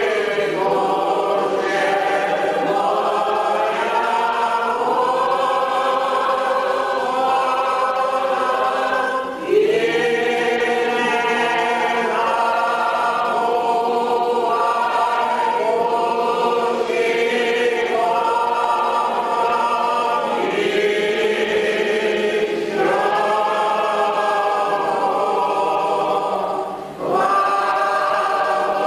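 Church choir singing an Orthodox liturgical hymn a cappella in long held chords, pausing briefly between phrases about nine and twenty-seven seconds in.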